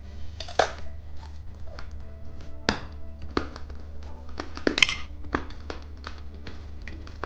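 Irregular taps and clicks of plastic candy packaging being handled, over soft background music.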